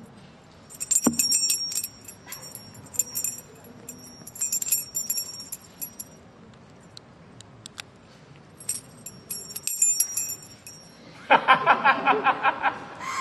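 A small brass padlock and its dangling keys jangling and clinking, held right at a dummy-head microphone, in four bursts of bright metallic ringing with a single knock about a second in. Near the end, a burst of laughter.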